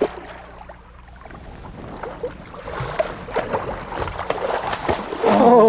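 Water splashing and sloshing as a big lake trout thrashes at the surface while it is brought to the net beside the boat, over a low hum that fades out about a second in. Near the end a man's voice lets out a long, loud exclamation that falls in pitch.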